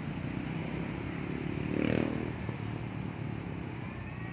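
A motor vehicle's engine swells and fades about two seconds in, over a steady outdoor din.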